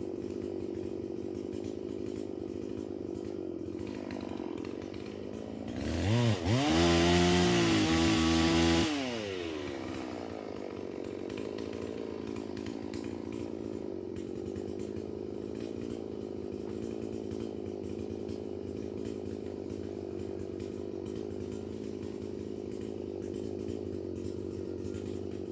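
Holzfforma G444 two-stroke chainsaw (a Stihl MS440 clone) idling, revved up once to high speed about six seconds in, held there for about three seconds, then dropping back to idle.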